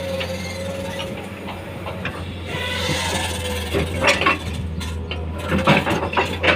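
Komatsu hydraulic excavator digging its bucket into a bank of earth and stones, over the steady drone of a heavy diesel engine. Scraping earth, a knock about four seconds in and a cluster of sharp knocks of rock near the end.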